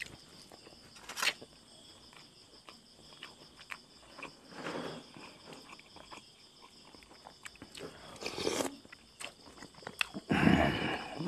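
Close-miked eating sounds: chewing of sticky rice and buffalo-skin tom yum, with small mouth clicks and a spoon scraping in the bowl, then a louder slurp of broth near the end.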